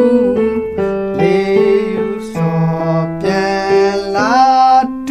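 Electronic keyboard playing a yodaya-style melody in the right hand over a steady left-hand accompaniment. A sliding rise in pitch comes near the end.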